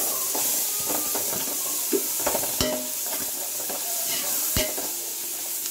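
Sliced onions sizzling as they fry in oil in an aluminium pot, stirred with a metal perforated ladle. Steady hiss with a few sharp clinks and scrapes of the ladle against the pot.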